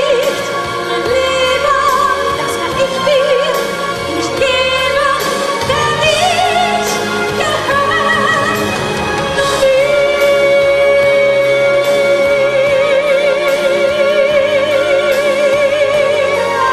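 A woman singing live into a handheld microphone in an operatic pop style over musical accompaniment. She runs through ornamented phrases, then holds one long high note with wide vibrato for the last seven seconds or so.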